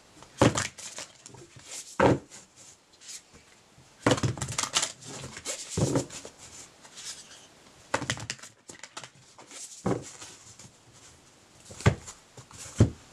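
A deck of oracle cards shuffled by hand: irregular rustling and sharp slaps of cards against each other, a few with a dull knock.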